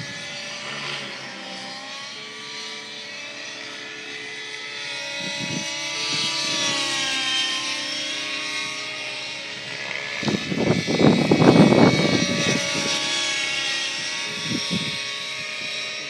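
700-size radio-controlled helicopter flying overhead, its whine rising and falling in pitch as it manoeuvres. Wind buffets the microphone in loud gusts about ten to twelve seconds in, with shorter gusts near the start and end.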